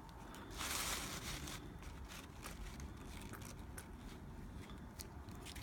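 Faint handling noise: a soft rustle about half a second in, then scattered light clicks and taps.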